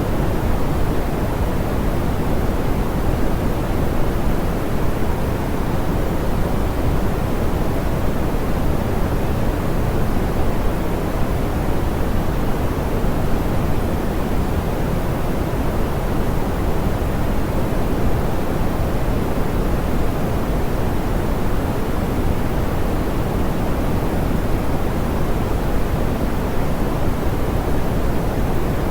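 Steady synthetic pink noise, soft and smoothed, with most of its energy in the low and middle range and little hiss at the top. It holds constant, without any change.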